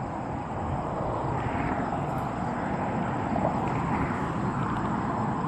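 Steady outdoor rumble of distant road traffic, swelling gently now and then as vehicles pass.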